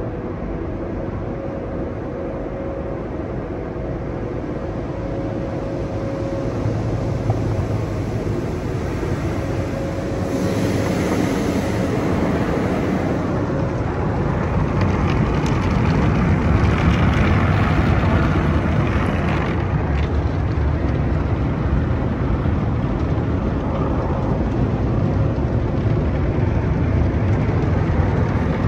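Tunnel car wash heard from inside the car: water spray and machinery running under a faint steady hum. From about ten seconds in the sound grows louder and denser as spinning wash brushes slap and rub over the windows and body.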